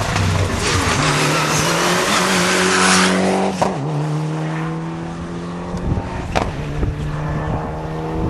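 Rally car going by at full throttle, its engine rising in pitch and shifting up, with a rush of tyre and road noise loudest as it passes about three seconds in. It then pulls away through the gears with a couple of sharp pops.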